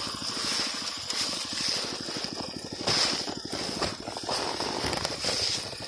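Snowmobile engine running, with a rapid, even pulsing and a steady high whine over it.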